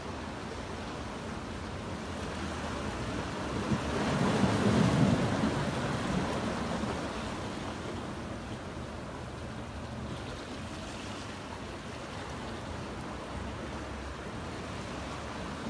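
Ocean surf washing in among shoreline boulders. One surge swells about four seconds in and ebbs away over the next few seconds.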